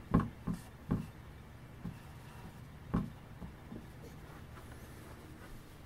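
Dry-erase marker writing on a whiteboard: a quick run of short strokes and taps over the first few seconds, the loudest about three seconds in.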